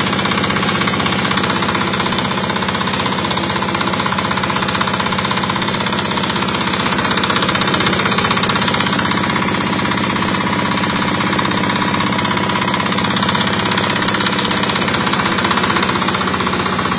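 Sago grinding machine running steadily, its engine giving a fast, even pulse under a continuous grinding noise.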